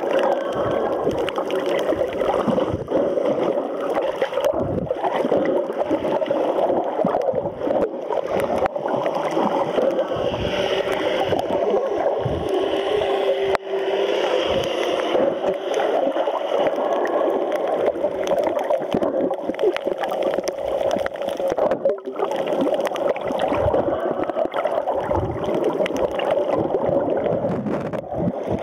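Muffled underwater water noise picked up by a submerged camera's microphone: a continuous, uneven rushing and gurgling of water moving around the camera.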